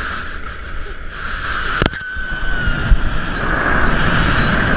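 Steady rush of wind and a light aircraft's engine, growing louder through the second half, with one sharp click about two seconds in.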